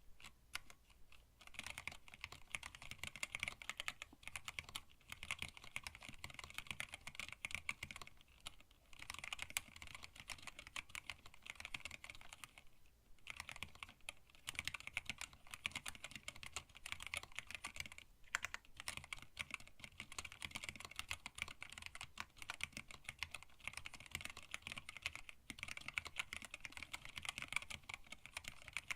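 Steady typing on a hand-wired split mechanical keyboard with linear Tealios switches, blank PBT keycaps and a stacked acrylic case: quick, continuous key clicks, with a brief pause about halfway through.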